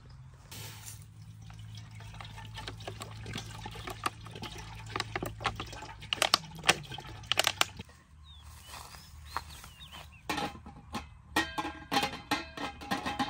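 Water poured from a plastic bottle into an aluminium cooking pot, running steadily for about seven seconds. Near the end a metal pot lid clatters and rattles with a ringing tone as it is set on the pot.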